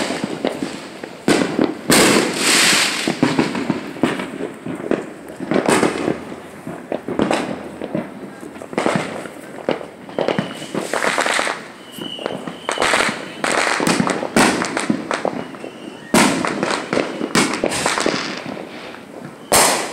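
Fireworks going off: loud, sharp bangs one after another at an irregular pace, sometimes several in quick succession.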